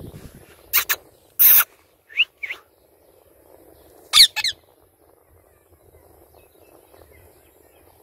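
Rose-ringed (Indian ringneck) parakeet calling: a run of about six short, sharp screeches and rising chirps, the loudest pair just after four seconds in, then quiet with only faint outdoor background.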